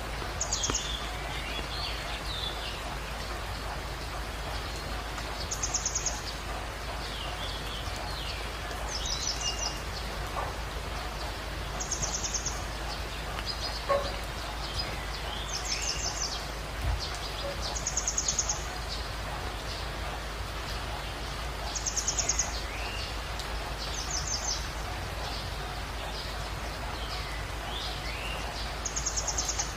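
Steady rain with birds calling. A short, high, rapidly trilled call repeats about every three seconds, and softer chirps come between the trills.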